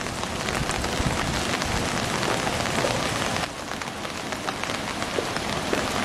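Steady rain falling, a dense hiss dotted with many close, sharp drop hits. It dips briefly in level about halfway through, then carries on.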